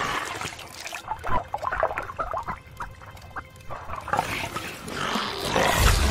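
Cartoon shark making short, choppy animal-like sniffing and grunting sounds, a run of quick snorts. A louder noisy swell builds near the end as the shark lunges forward.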